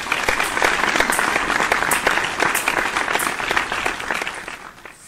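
Crowd applause, a dense patter of many hands clapping, holding loud and then fading out near the end.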